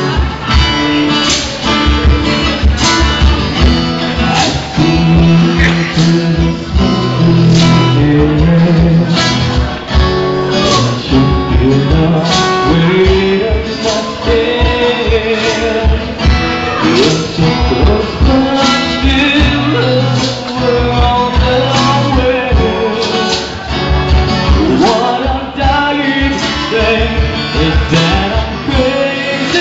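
A band playing a song: singing over guitar and bass with a steady beat.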